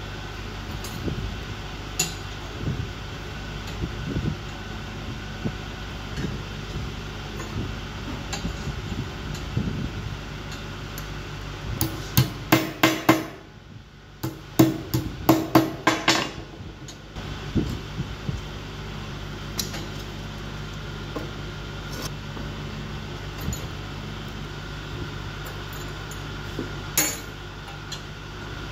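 Hand hammer striking steel bars to seat the cross bars of a steel bar grating: about halfway through, two quick runs of sharp metallic blows, with a single blow near the end, over a steady background hum.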